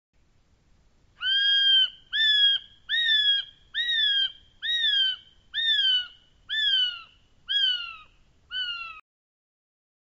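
Kiwi calling: a series of nine shrill whistles, about one a second, each rising briefly and then falling in pitch.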